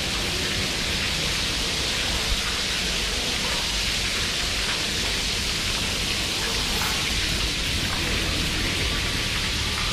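Splash-pad water features, spray hoops and floor jets, spraying and splattering onto the wet floor: a steady, even hiss like heavy rain.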